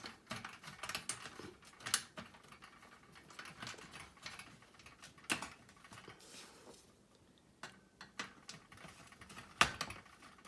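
Scattered light metallic clicks and taps of a screwdriver and small wrench on a screw, lock washer and nut as the hardware is tightened. The sharpest clicks come about 2, 5 and 9.5 seconds in.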